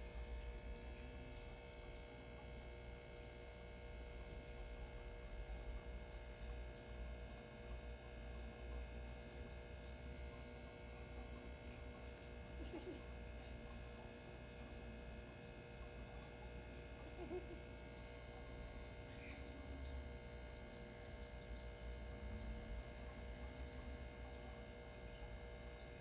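Steady electrical hum with a low rumble under it, and a few faint short sounds now and then.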